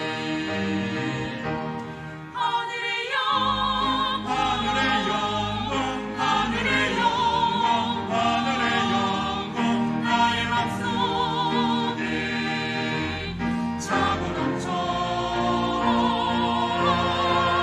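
Mixed church choir singing a Korean hymn anthem in parts, with pipe organ and piano accompaniment. The choir swells to a fuller, louder sound about three seconds in, sustained voices with vibrato over deep organ bass notes.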